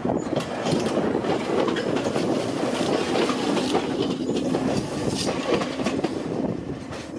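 Meitetsu 6000-series electric train passing close by, its wheels running over the rails with a rapid, irregular clatter of clicks at the rail joints; the noise eases a little near the end as the cars move away.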